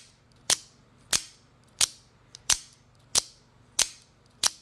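AKC F-16 out-the-front automatic knife being fired open and shut over and over: a sharp snap each time the spring-driven blade shoots out or slams back and locks, about one and a half snaps a second.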